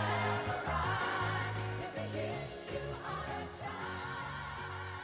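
Background pop music: a song with a singing voice over a steady bass line and beat, gradually fading down.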